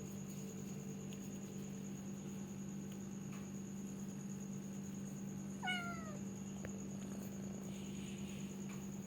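Domestic cat giving one short meow that falls in pitch, about six seconds in, over a steady low hum.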